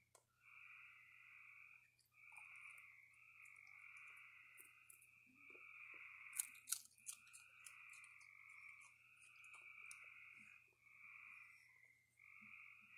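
Faint chorus of frogs trilling, one trill of about a second after another with short gaps. A few sharp crunches about halfway through are a raccoon chewing dry food.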